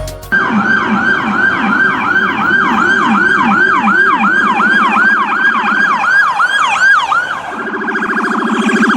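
Electronic emergency-vehicle siren sounding a fast yelp, about three falling sweeps a second, then switching about seven and a half seconds in to a rapid warble.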